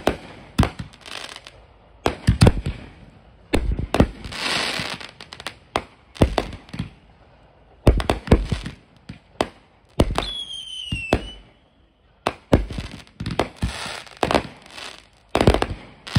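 Consumer aerial fireworks going off in quick clusters: sharp bangs of bursting shells with crackling between them. About ten seconds in, a single high whistle falls in pitch for about a second.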